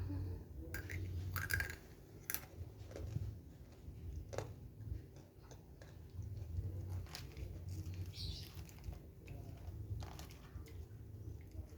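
Hands massaging a person's face and head: faint rubbing with scattered small clicks and rustles at irregular moments, over a low hum.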